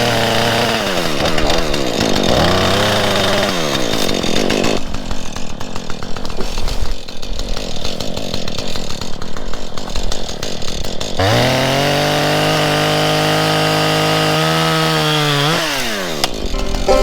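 Husqvarna 440 two-stroke chainsaw revving up and down, then cutting into wood from about five seconds in to about eleven seconds in. It then runs at a steady high rev for a few seconds and drops back to idle near the end.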